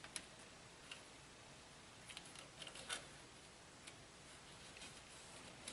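Near silence with faint, scattered light clicks and taps from small parts being handled, the loudest about three seconds in.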